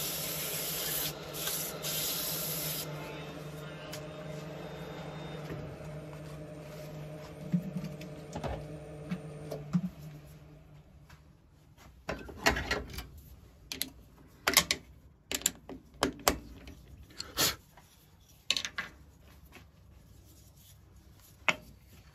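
Sandpaper hissing against a Blackbutt wood piece spinning on a wood lathe, loudest for the first few seconds, over the lathe motor's steady hum. The lathe stops about ten seconds in, followed by a series of sharp clicks and knocks as the piece is handled and taken off the metal chuck.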